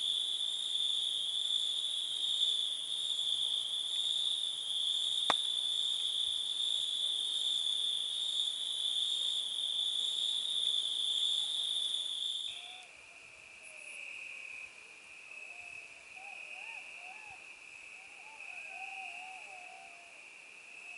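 Steady night chorus of crickets trilling. About twelve seconds in, it gives way abruptly to a quieter, lower-pitched trill, with faint wavering calls beneath it. There is one sharp click about five seconds in.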